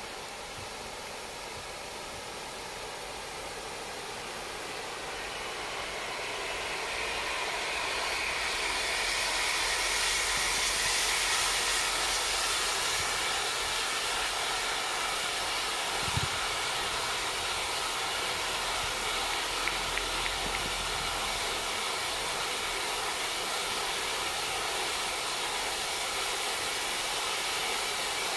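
Firework flower effect on a pole spraying a large burst of sparks: a steady hiss that swells over the first ten seconds or so and then holds, over the quieter hiss of spark fountains. One thump about sixteen seconds in and a few small crackles a few seconds later.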